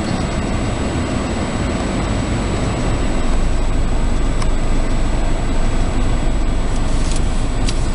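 Car cabin noise while driving: a steady engine and road rumble, growing a little louder about three seconds in, with a couple of light clicks.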